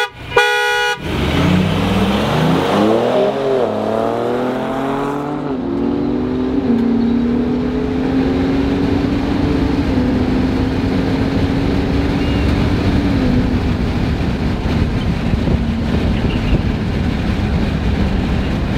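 A car horn honks once, then the 2021 Ford Raptor's 3.5-litre twin-turbo EcoBoost V6, heard from inside the cab, accelerates hard from a standing start: its pitch climbs and drops through several quick upshifts before settling into a steady cruise about thirteen seconds in.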